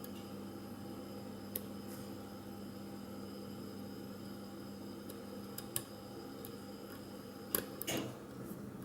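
Faint, sparse clicks of a lock pick working the pin stack of a 50mm padlock, a few clustered near the end, over a steady low hum.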